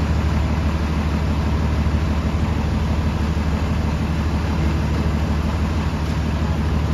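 Gillig transit bus engine idling steadily at a standstill, with a deep, even exhaust note.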